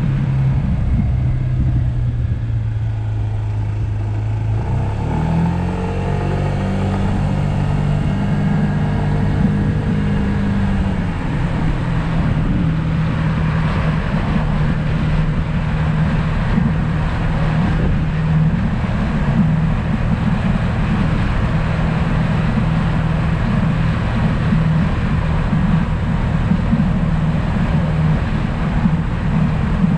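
2020 Yamaha SMax scooter's 155 cc single-cylinder engine running under way, its pitch rising about five seconds in as it accelerates, then easing slightly and holding steady, over a constant rush of road noise.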